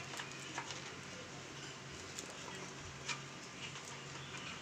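A few faint scattered plastic clicks and ticks from handling a small electric blower as its dust bag and pipe are fitted, over a faint low steady hum; the blower is switched off.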